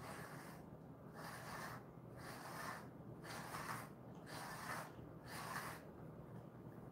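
Grooming brush drawn repeatedly through a Jindo-mix dog's coat: short, faint rasping strokes, about ten in quick succession.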